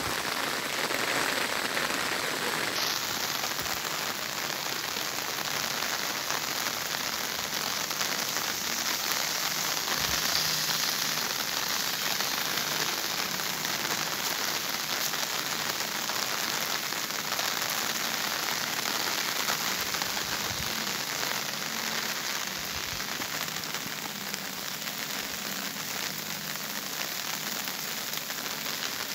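Steady rain falling, a continuous even hiss with no let-up.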